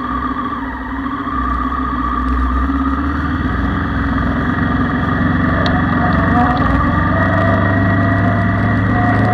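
Motorcycle engine running steadily at low speed, getting louder and higher from about three seconds in as the bike pulls away.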